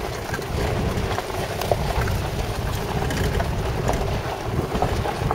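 A vehicle rolls down a gravel track with a steady low rumble from its engine and tyres on the loose gravel, and a few faint clicks of stones. Wind buffets the microphone at the open window.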